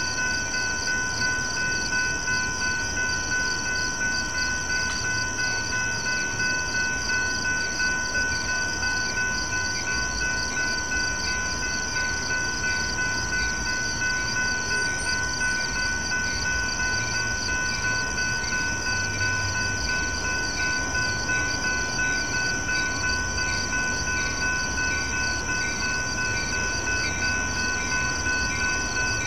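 A Metra commuter train approaching from a distance, heard as a faint low rumble. Over it, the louder and more prominent sound is steady high-pitched trilling: a fast pulsing hiss and several held tones.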